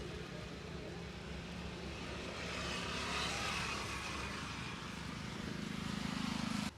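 Road traffic: a passing vehicle's noise swells and fades about three seconds in, then a low engine drone builds and cuts off suddenly.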